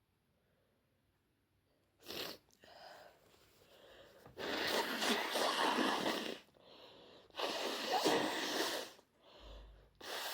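A person sneezing. After a quiet start there is a short sharp sound about two seconds in, then two long loud sneezes about four and seven and a half seconds in, with softer breathy sounds between.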